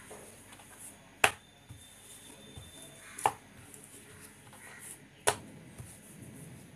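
Wooden rolling pin rolling over stacked dough rounds on a wooden chopping board: soft rubbing strokes, with three sharp wooden knocks about two seconds apart as the pin knocks down against the board.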